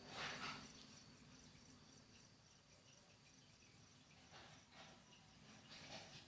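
Near silence: faint room tone with a faint high-pitched pulsing tone, about four pulses a second, and a few soft puffs of noise.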